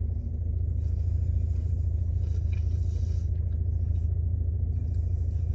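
Car engine idling, a steady low rumble heard from inside the cabin, with faint eating noises of fork and chewing for a couple of seconds about a second in.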